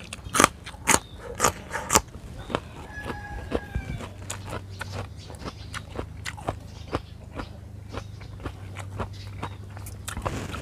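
Close-up chewing of a mouthful of fresh green vegetable: a few loud crunches in the first two seconds, then steady, softer chewing. A low steady hum comes in about four seconds in.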